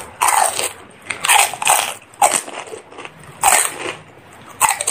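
A person biting into and chewing crisp fuchka (pani puri) shells: a quick series of loud, crackly crunches.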